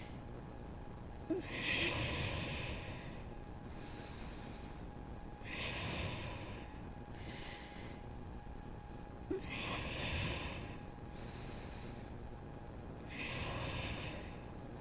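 A person breathing slowly and audibly in a steady paced rhythm, a loud hissing exhale about every four seconds with softer inhales between, timed to slow core leg lifts. Two faint clicks are heard, about a second in and near the middle.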